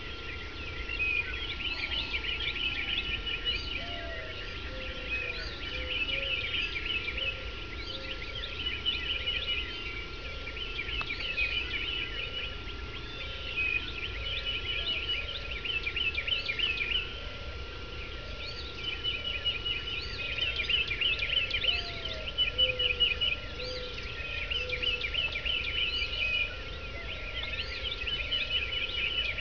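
Dawn chorus of many birds singing at once before sunrise: bright trilled and chirping phrases repeat every second or two, with lower, slower calls underneath.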